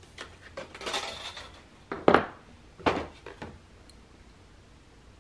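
Small metal jewelry hand tools clicking and clinking as side cutters work a wire jump ring and are swapped for pliers: a patter of light clicks, then two sharp clicks about two and three seconds in, the first the loudest.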